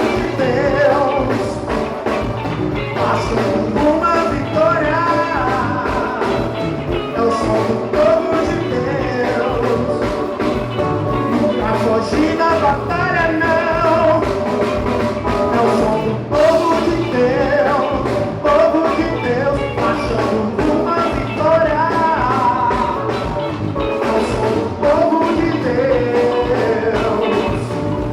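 Upbeat band music with a steady drum beat and a melodic lead line over it.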